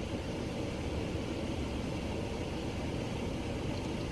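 Steady low rumble and hiss of a car running, heard from inside the cabin.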